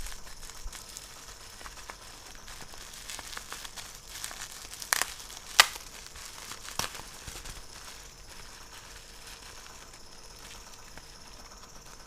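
Plastic packaging of a RAM module crinkling and rustling as it is opened by hand, with three sharp clicks in the middle, the second the loudest.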